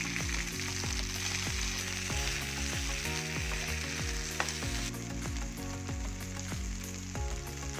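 Marinated paneer cubes sizzling in hot coconut oil in a frying pan as they are turned with a spatula, with one sharp click about four and a half seconds in.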